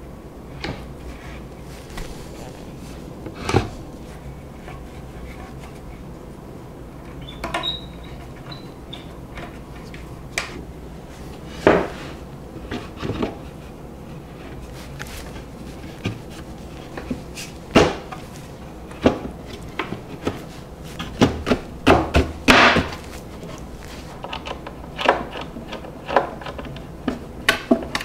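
Wooden cabinet panels being fitted together by hand: scattered knocks and clicks as the boards bump and their metal knock-down connector posts seat. The knocks are sparse at first and come thick and fast over the last ten seconds or so.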